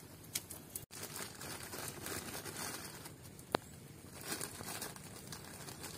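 Garlic frying in oil in a pan, with a steady sizzle and crackle, and one sharp click about three and a half seconds in.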